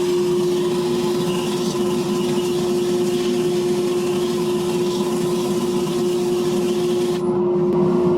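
Wood lathe running with a steady hum while a turning tool cuts the spinning segmented wooden post, a hissing scrape over the motor. The cutting stops about seven seconds in and the lathe keeps running.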